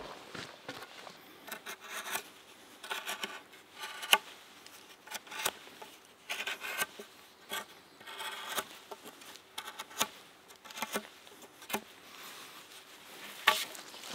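Knife carving a piece of wood by hand: short, irregular scraping cuts, a few strokes a second with pauses between them.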